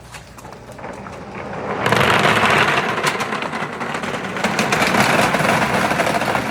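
Many balls rolling and clattering down a marble run: a few scattered clicks, then about two seconds in a loud, dense rush of rapid clicks and rolling noise that keeps on.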